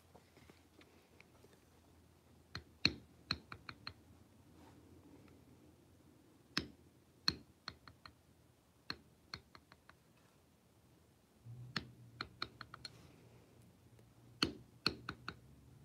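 Mallet striking a bar grounder (a leather backgrounding stamp) on tooling leather, in short groups of sharp taps: a harder strike followed by a few quick lighter ones, repeated every few seconds as the tool is walked along the edge of the pattern.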